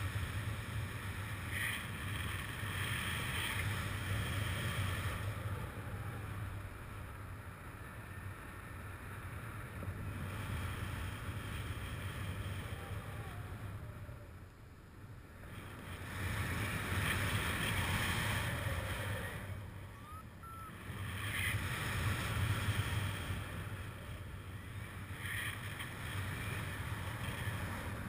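Wind rushing over the microphone of a camera on a paraglider in flight. It is a steady noise that swells and eases, dropping away briefly about halfway through and again a few seconds later.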